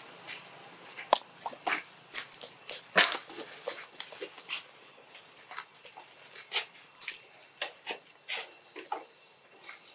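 Newborn macaque making short, irregular squeaks and clicks, a dozen or more, the loudest about three seconds in.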